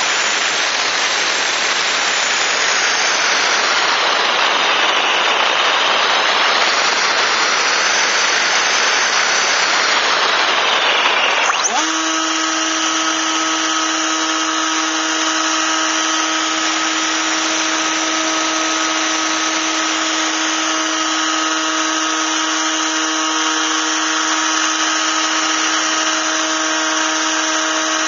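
Radio-controlled model plane in flight, heard from on board: a dense rush of airflow and motor noise. About twelve seconds in it sweeps quickly up into a steady, high motor-and-propeller whine with a clear pitch.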